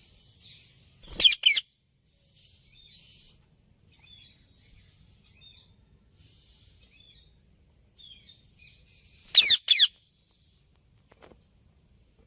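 Indian ringneck parrot giving a loud, shrill two-note call about a second in and again about eight seconds later, with softer scratchy chattering in between.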